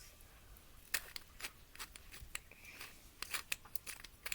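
A flashlight being handled and opened to get at its batteries: a scattered series of light clicks and rattles.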